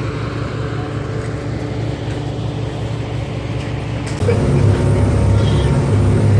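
Passenger ferry's engines droning steadily with a low hum, growing louder about four seconds in.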